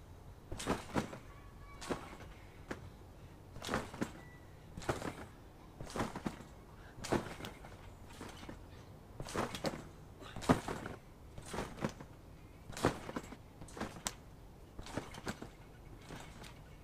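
A person bouncing on a backyard trampoline: the landings make repeated thumps, about one a second and often in close pairs. The loudest thump comes a little past halfway.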